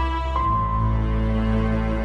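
Slow background music of long held chords, with a new melody note and a new bass note about half a second in.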